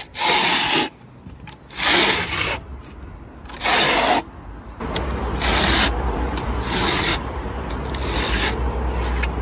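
Steel plastering trowel scraping 1.5 mm silicone-enhanced top coat render flat across a wall in repeated sweeps, about seven strokes, each a short rasp. A low rumble runs underneath from about halfway.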